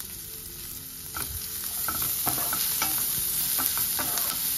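Sliced onion, garlic and green capsicum sizzling in butter in a nonstick frying pan as they are stirred. From about a second in, the sizzle gets louder and short scrapes and taps against the pan come through.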